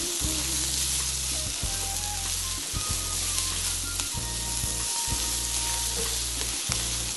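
Shrimp, onions and garlic sizzling steadily in margarine in a frying pan while being stirred.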